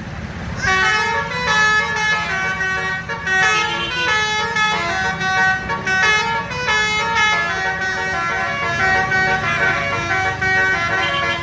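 Bus telolet horn, a multi-trumpet musical horn, playing a quick tune of stepped notes that starts about a second in and keeps going, over a steady low rumble.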